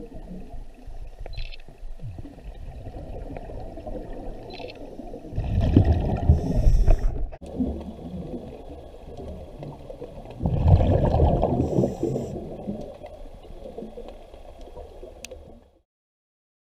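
Underwater recording of a scuba diver breathing through a regulator: two loud bubbling exhalations about five seconds apart over a steady low underwater rumble.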